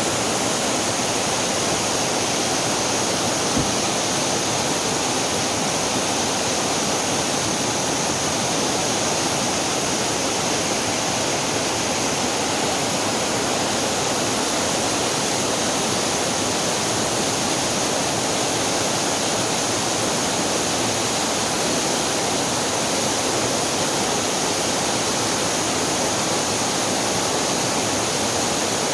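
Water of a mountain stream or small waterfall rushing and splashing over rocks, a steady even rush.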